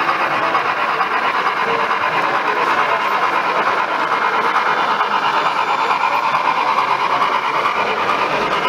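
Model steam locomotive running past with its train, a steady whirring of its motor and gears with wheels rolling on the track.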